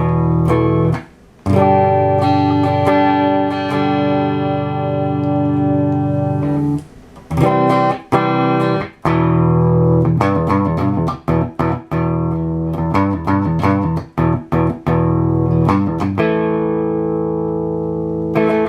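Electric guitar played through a Carvin X100B tube amp on its clean channel, just fitted with a new choke and replaced grid resistors. Chords are struck and left ringing for several seconds, then played in a quicker run of chopped chords, with a last chord ringing near the end.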